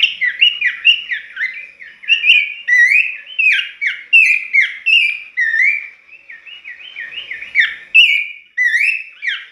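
Horsfield's babbler (pelanduk semak) singing a fast, unbroken run of short whistled notes, each sliding up or down in pitch, several notes a second. The song eases for a moment past the middle, then picks up again.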